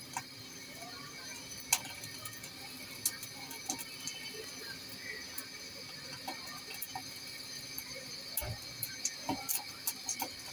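Broiler chicken feet crackling in a gas-stove burner flame: scattered small pops and clicks as the skin scorches, a sign it is cooking and about to split. Faint background music runs underneath.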